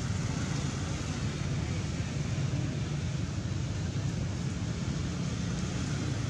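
Steady low rumble with a hiss above it, unbroken and without distinct calls or knocks.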